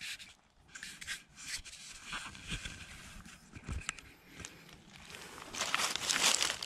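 Footsteps crunching and rustling through dry fallen leaves, with a louder stretch of leaf rustling near the end.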